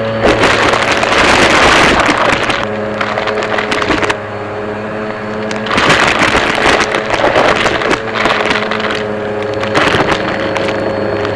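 Vacuum cleaner running with a steady motor hum. Twice its sound swells into a loud rushing noise lasting a few seconds, with a short swell near the end, as it is worked over the floor.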